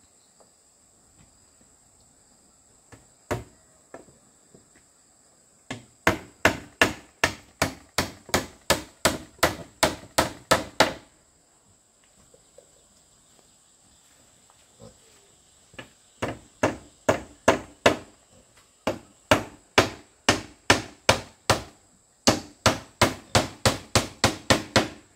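Hammer driving nails into wood: a single knock, then several runs of quick, even blows, about three a second, with short pauses between runs. A steady high insect drone runs underneath.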